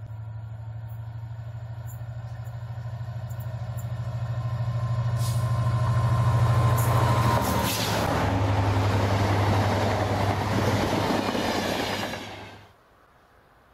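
Class 67 diesel locomotive with its EMD two-stroke V12 engine running with a steady low hum, hauling a passenger train that approaches, grows louder and passes close at speed with a rush of wheel and rail noise. The sound cuts off suddenly near the end.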